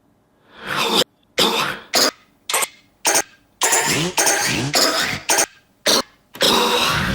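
A person coughing, about a dozen hacking coughs in quick succession, spliced together so that several cut off abruptly, with the last one running longer.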